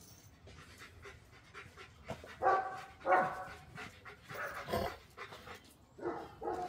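A dog vocalising in about five short pitched calls, bunched from about two seconds in, during on-lead heelwork.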